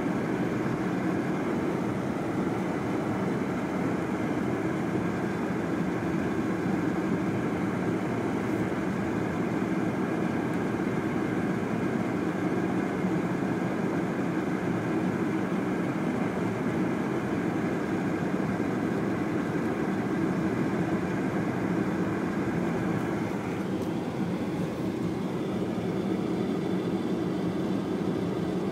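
Steady car cabin noise while driving: engine and tyre noise on a slushy, snow-covered road, heard from inside the car.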